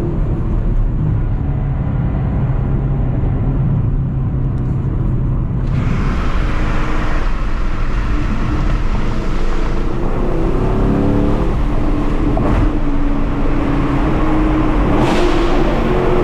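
2022 Chevrolet Camaro SS 1LE's 6.2-litre LT1 V8 and exhaust running under way, with road and wind noise. The engine note holds low at first, the road and wind hiss grows louder about a third of the way in, and the revs climb about two-thirds through before holding at a higher, steady pitch.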